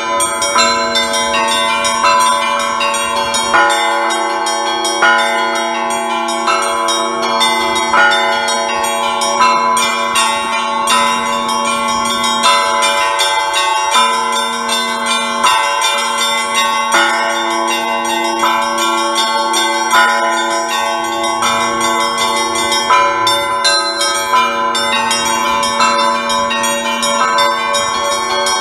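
Russian Orthodox church bells rung by a single bell ringer: small bells strike rapidly in a dense, rhythmic chime over the steady ringing of the larger, lower bells.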